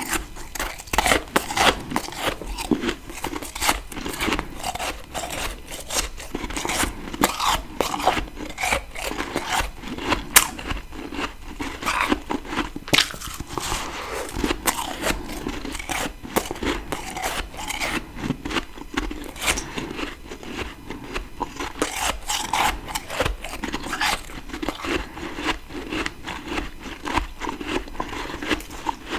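Fresh freezer frost being bitten and chewed close to the microphone: a continuous run of sharp, crackly crunches.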